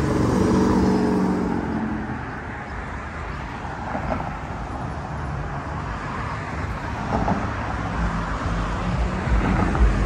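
A car passes close by, its engine hum loudest at the start and fading over about two seconds, then steady road-traffic noise.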